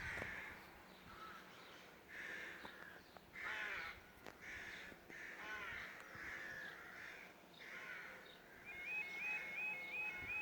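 Crows cawing repeatedly, about once a second. Near the end a level crossing warning alarm starts up: a fast, regularly repeating electronic warble.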